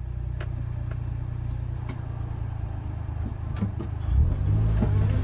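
Suzuki Jimny engine running at low speed with a steady low hum and scattered light knocks and rattles; about four seconds in it gets louder as the engine pulls harder.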